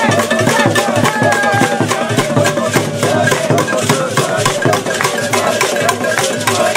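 Drums and rattles playing a fast, steady beat, with many voices singing along.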